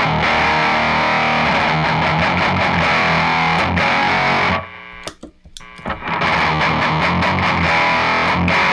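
Electric guitar played through an HM2-type heavy metal distortion pedal, giving the saturated 'chainsaw' HM2 tone. Two heavy riffs: one of about four and a half seconds, a brief break, then a second of about three seconds.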